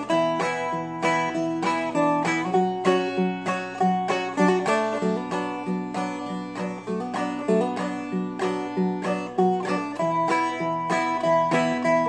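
A Seagull Merlin, a small four-string dulcimer-style instrument, flatpicked in a quick, even rhythm: a melody of picked notes over steadily ringing drone strings.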